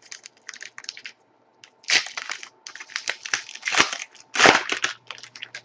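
Hockey trading cards and their packaging being handled: a run of short, irregular crinkling and scraping rustles, the loudest about two, four and four and a half seconds in.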